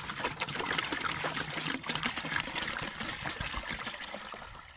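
Water poured in a thick stream into a large aluminium pot, splashing onto the water already in it. The pour weakens near the end.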